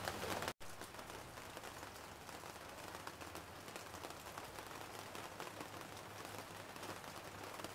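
Faint patter of light rain: scattered soft ticks of drops over a low steady hiss, with a brief dropout about half a second in.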